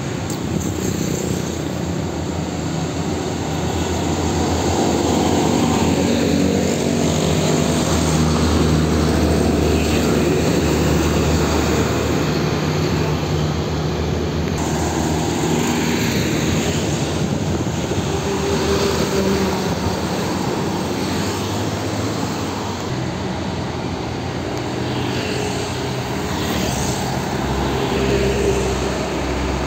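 Heavy road traffic: diesel trucks and motorcycles driving past with a steady engine drone and tyre noise. The low rumble swells as the bigger trucks go by.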